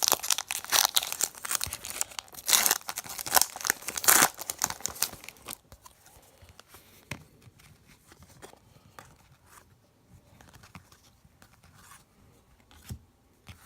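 A trading-card pack wrapper being torn open and crinkled, loud and crackly for the first five seconds or so. After that, only faint rustles and light ticks.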